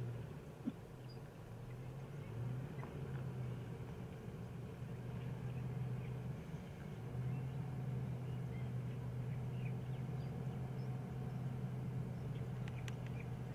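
Steady low hum of an idling vehicle engine, with faint scattered bird chirps and small ticks above it.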